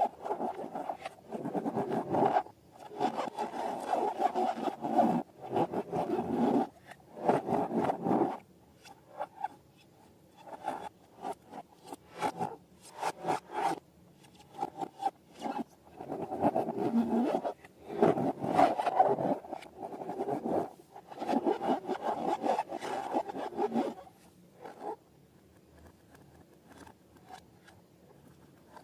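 Slime being worked by hand, squished and stretched, giving sticky crackling and squelching in stretches of a second or two with short pauses, growing sparse near the end.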